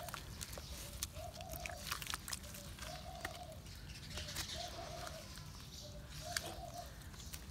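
Wet squelching and splashing as hands and concrete slabs are worked in cement slurry, with sharp little clicks and drips. A dove coos in the background, a short two-part coo repeated four times about every one and a half seconds.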